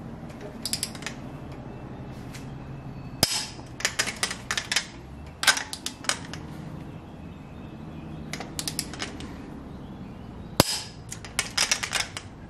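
Click-type torque wrench tightening the cylinder head stud nuts of a 7.3 IDI diesel. It gives two sharp clicks, about three seconds in and again at about ten and a half seconds, each the sign that a nut has reached the set torque of 120 ft-lb. Between them come quick runs of ratchet ticks as the wrench is swung back for the next pull.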